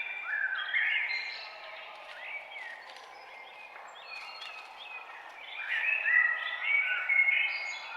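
Several songbirds singing at once in a dawn chorus, quick whistled phrases that rise and fall and overlap, over a steady low background hiss. The singing swells near the start and again about six seconds in.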